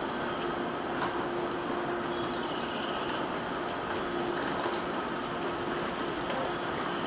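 JR 485-series limited express electric train pulling away from the platform: steady running noise with a constant low tone and a few clicks from the wheels.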